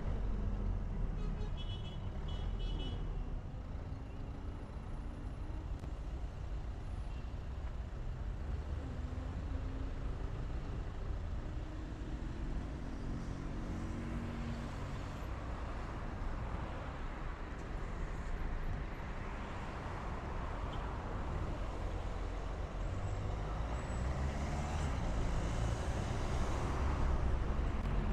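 A car driving in city traffic: steady engine and road rumble, with the engine note rising and falling a few times as it speeds up and slows. The noise grows somewhat louder near the end.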